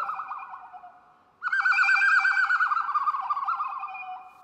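Imitation birdsong blown on a recorder mouthpiece held in cupped hands: a fast warbling whistle trill that sags slowly in pitch and fades out about a second in. A second, longer trill starts about a second and a half in, sagging and fading the same way.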